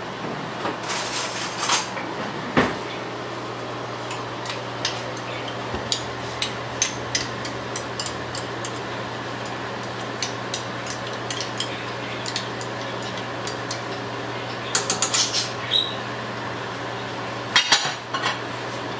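Metal spoon and cookware clinking and knocking against pots, pans and a glass dish as food is poured and spooned at the stove, in scattered sharp clinks with busier flurries about a second in, around the middle of the second half, and near the end. A steady low hum runs underneath.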